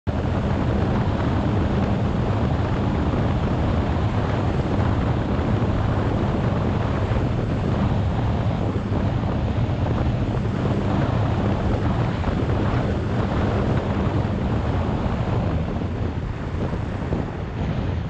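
Strong wind buffeting the microphone of a GoPro 6 carried through the air on an FPV drone: a steady, loud rush, heaviest in the low end, with a faint steady low hum beneath it.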